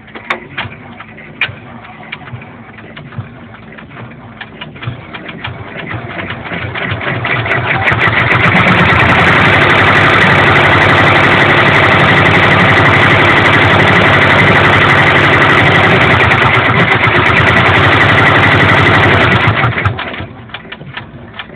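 Brother PR600 six-needle embroidery machine stitching. A fast ticking speeds up over a few seconds into a loud, steady high whir, which holds for about ten seconds and then drops back to ticking near the end.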